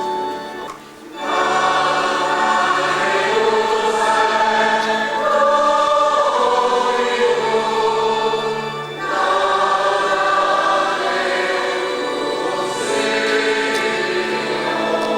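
A choir singing a slow Christian chant in long held notes over steady low sustained accompaniment. The singing drops out briefly about a second in and dips again just before nine seconds.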